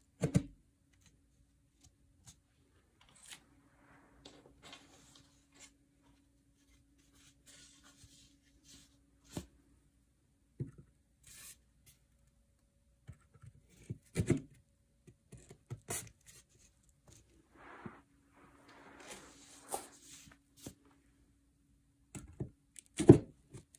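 Hand-assembly handling noises of flat-pack furniture: scattered small clicks, taps and rustling as metal connector pins are pushed into a laminated particleboard panel. There are two louder knocks, one about midway and one near the end, and a faint steady hum underneath.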